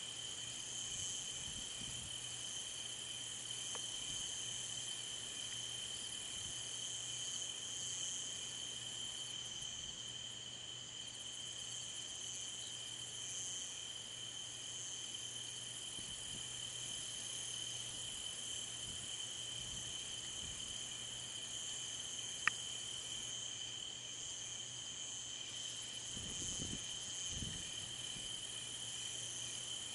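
Night chorus of crickets trilling steadily: one even high trill with a higher, pulsing chorus above it. There is a single sharp click about two-thirds of the way through and a faint low rumble near the end.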